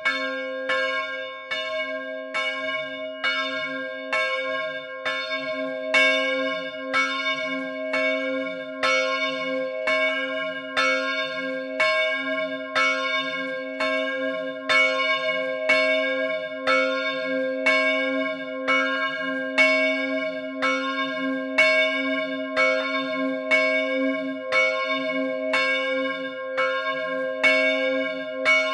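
The large bronze bell of a three-bell De Poli set, tuned to C4 and cast in 2002, swinging on its electric drive and striking about once a second, evenly, with its low hum ringing on between the strokes.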